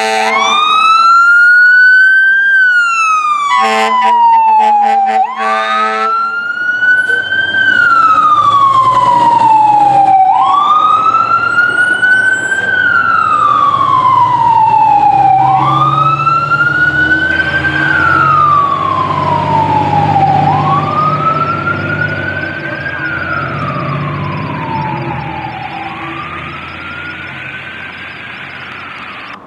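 Fire engine's siren wailing, rising and falling in pitch about every five seconds, with a long air horn blast about four seconds in. The truck's engine rumbles underneath, and the siren fades as the engine drives away.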